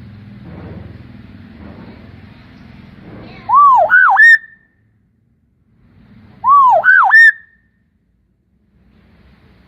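Hill myna giving two loud, identical whistles about three seconds apart, each a quick run of arched notes climbing to a short held high note.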